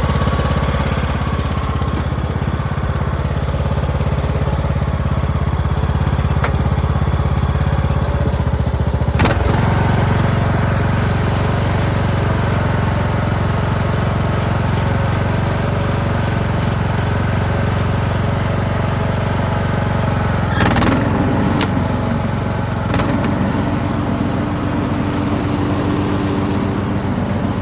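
Husqvarna LTH18538 riding lawn tractor's 18.5-horsepower engine running steadily. Sharp clicks come about a third of the way in and twice more later, and the engine note shifts after the first two.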